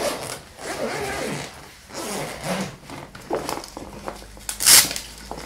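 A nylon backpack and its straps being handled: rustling and scraping of fabric and buckles, with a short, loud rasp near the end.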